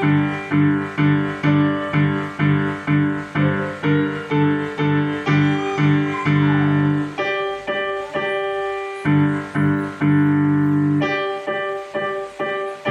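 Digital piano playing a beginner's level-1 piece in G five-finger position: evenly struck notes about two a second, then slower, longer-held notes and chords over the last several seconds.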